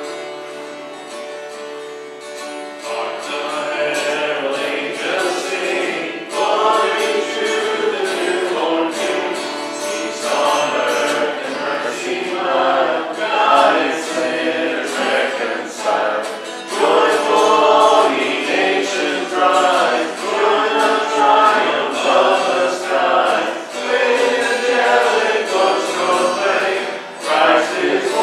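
Acoustic guitar accompanying voices singing a worship song; the guitar plays alone at first and the singing comes in about three seconds in.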